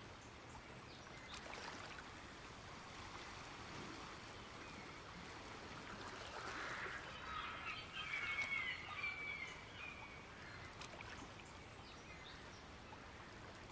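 Faint outdoor ambience: a steady hiss with a few high chirping calls a little past the middle.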